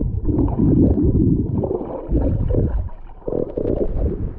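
Muffled gurgling and sloshing of water heard through a camera held underwater while swimming, a choppy low rumble that eases near the end as the camera comes up to the surface.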